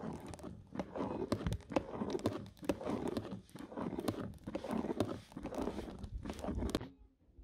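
Thick white liquid poured from a bowl into a metal pot while a long spoon stirs it: a run of irregular sloshing and scraping strokes that stops abruptly near the end.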